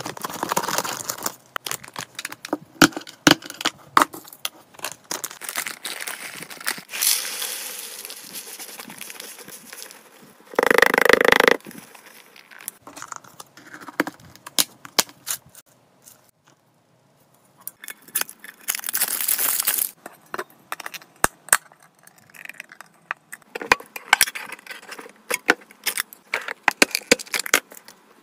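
Hands handling food packaging and plastic storage tubs: a foil bag of dry hamster food crinkling, the mix pouring into a plastic tub, and many small clicks and taps of plastic containers and lids. There is a loud rustling burst about halfway through and a brief near-quiet pause after it.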